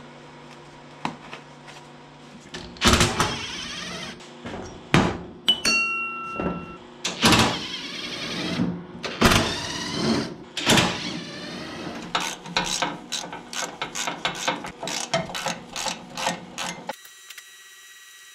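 Cordless drill-driver running in short bursts as it backs bolts out of a Kubota L2350 tractor's hood enclosure, with metal clanks between the runs. A quick run of clicks follows, then the sound cuts off abruptly.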